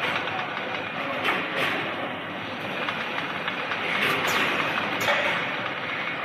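Automated carton packing line running: a steady mechanical clatter from the machinery and conveyor, with several short hisses as the pick-and-place arm works.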